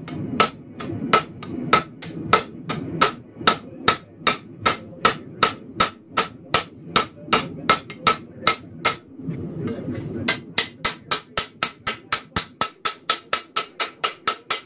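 Blacksmith's hammer striking red-hot high-carbon steel on an anvil while forging a knife blade, each blow with a short ring. The blows come steadily about three a second, stop briefly about nine seconds in, then resume quicker at about four a second.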